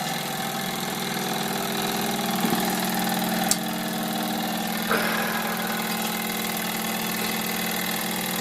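Wilesco D455 toy steam engine running steadily under steam, its cylinder chuffing evenly and the flywheel turning, with a single sharp click about three and a half seconds in.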